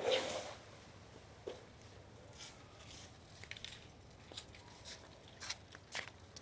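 Faint, irregular taps and scuffs of children moving about quietly during a game of hide-and-seek, after a short rustling burst at the start. The taps come more often in the second half.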